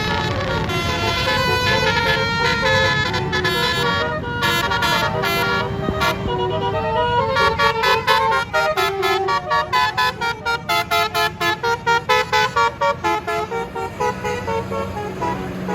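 Tour bus's telolet basuri horn, a multi-tone musical air horn, playing a tune of changing notes, then a run of quick short toots about three a second, over a low engine rumble.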